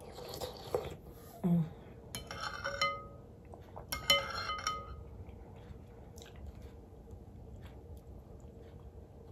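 Eating with a metal spoon from a glass bowl: a spoonful taken at the mouth near the start, then the spoon clinks against the glass twice, about two and four seconds in, each clink ringing briefly. Soft chewing and mouth sounds follow.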